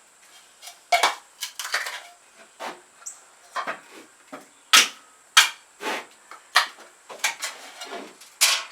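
Irregular sharp clicks and knocks of hard objects being handled, such as tools and small metal parts being moved and set down. There are two louder knocks about five seconds in and another near the end.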